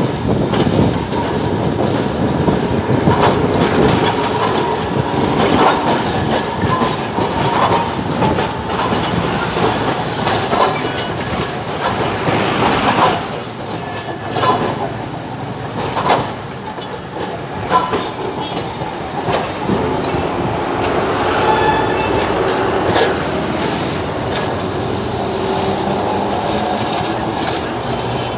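Old street tram passing close by: its steel wheels clatter and knock over the rails, with the running noise carrying some faint steady high tones.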